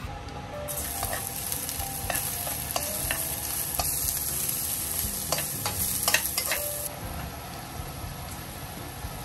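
Food sizzling as it fries in a pan, with sharp clicks of stirring, lasting about six seconds and then stopping suddenly.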